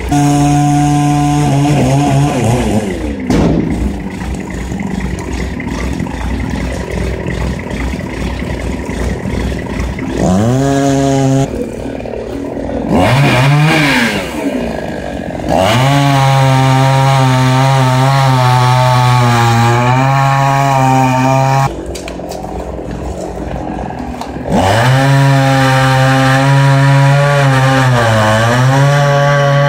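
Two-stroke chainsaw cutting a felled pine trunk into logs: it drops back to idle between cuts, revs up several times, and runs at full throttle through the cuts. The pitch sags briefly under load near the end.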